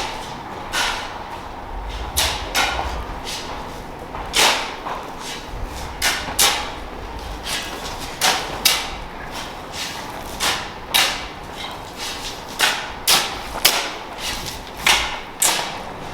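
Footsteps walking at a steady pace, about one to two steps a second, each a short scuffing knock.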